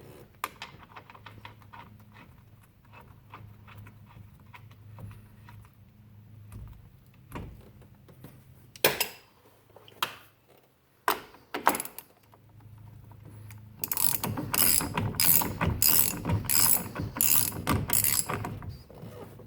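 Half-inch-drive hand ratchet with a 15/16 socket tightening the steering wheel nut. Faint clicking at first, a few sharp knocks around the middle, then a loud run of rapid ratchet clicks for the last five seconds.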